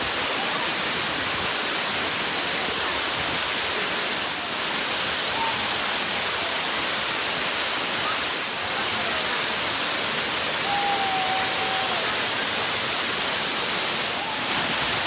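Waterfall water rushing in a steady, loud hiss of cascading water that dips briefly three times. A faint high tone is held for about a second around the middle.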